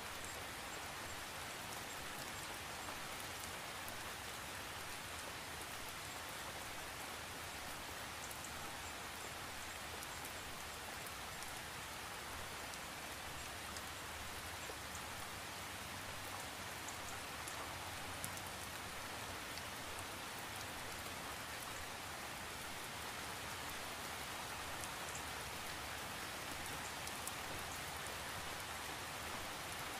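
Steady rain falling, an even hiss with scattered light drop ticks.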